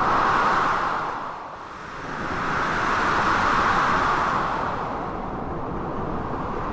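Blizzard wind gusting over a steady rushing noise, with two strong swells: one right at the start and a longer one from about two and a half seconds in.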